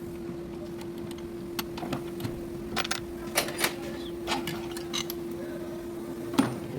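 Scattered clicks and clinks of hand tools on metal parts, over a steady hum.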